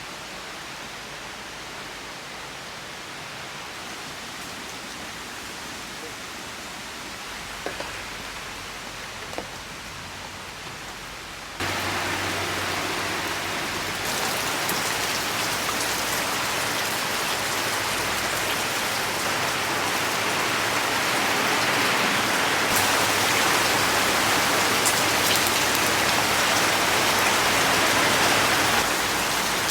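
Steady rain falling, with a couple of faint knocks about eight and nine seconds in. About twelve seconds in it jumps suddenly to louder, heavier rain.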